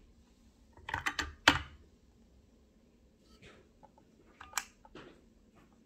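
Handset of a Bronzi retro push-button telephone being lifted off its plastic cradle: a quick cluster of sharp plastic clicks and knocks about a second in, then a few lighter single clicks as it is handled.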